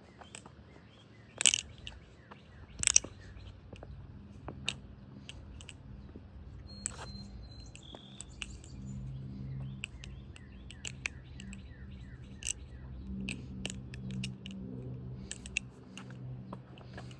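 Balisong being flipped: sharp clacks of its aluminium handles, the two loudest within the first three seconds, then a run of lighter clicks. Faint bird chirps behind.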